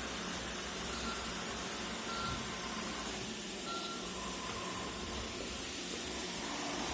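iRobot Roomba e5 robot vacuum running with a steady whirring hiss, with a few short, faint high beeps over it.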